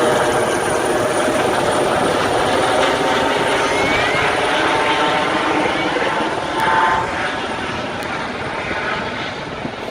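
Helicopter in flight, its rotor noise steady and slowly fading as it moves away.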